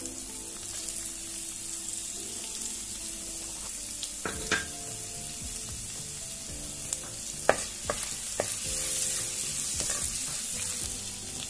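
Chopped garlic sizzling steadily in hot coconut oil with tempering spices in a clay pot. It is stirred, with a few sharp clicks of the spoon against the pot, the loudest about seven and a half seconds in.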